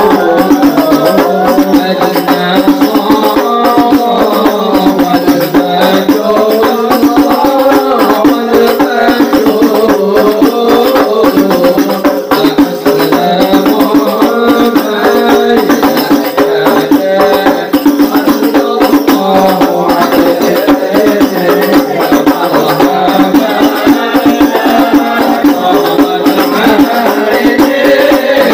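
Al-Habsyi sholawat music: frame drums beating a fast, dense rhythm under voices chanting together, steady and loud throughout.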